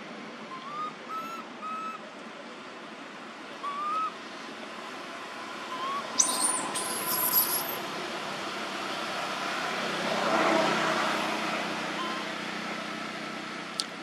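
Short, upward-gliding whistled calls, several in the first few seconds, over steady outdoor background noise. A brief high hiss comes about six seconds in, and a broader swell of noise peaks around ten seconds.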